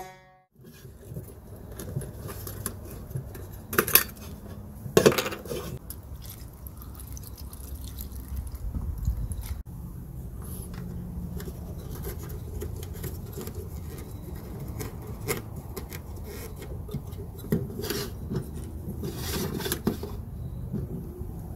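Small tin Sun Brand No.3500 kerosene lantern being handled: its metal parts click and clink, with two sharp clinks about four and five seconds in and a cluster more near the end.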